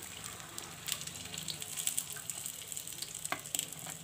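Onion pakoras deep-frying in hot oil in a kadhai: a steady sizzle with scattered crackles.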